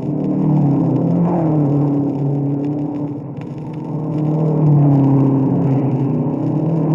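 Racing car engines played back from an old 78 rpm sound-effects record, the engine note repeatedly falling and rising. The loudness eases about three seconds in and swells again soon after.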